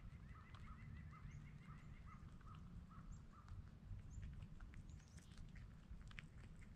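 A bird calling a quick even series of about a dozen short notes, roughly three a second, stopping about halfway through. Later there is faint crunching as a wild cottontail rabbit eats granola off the snow.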